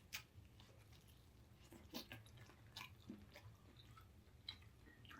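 Faint chewing of a mouthful of paprika chicken: a few scattered soft clicks from the mouth at irregular intervals.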